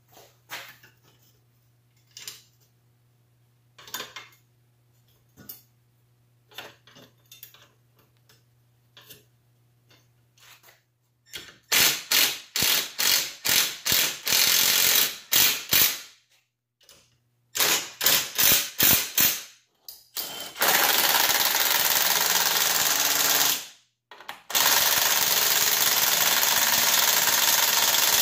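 Light clinks of engine parts being handled, then a cordless impact driver hammering on the flywheel nut of a 1968 Toro Snow Hound 20 snowblower engine. It runs first in short stuttering bursts, then in two long steady runs of about three seconds each near the end.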